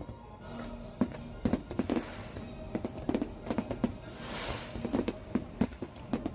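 A fireworks display, aerial shells bursting in a rapid volley of sharp bangs from about a second in, several a second, over show music.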